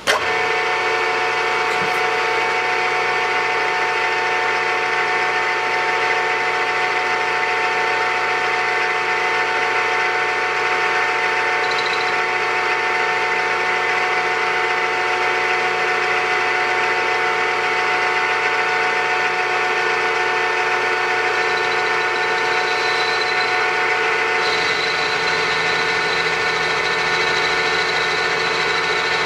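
Milling head of a 3-in-1 lathe-mill combination machine running at speed: its motor and gear train make a steady multi-tone whine. It starts abruptly at the beginning, and its low hum shifts near the end.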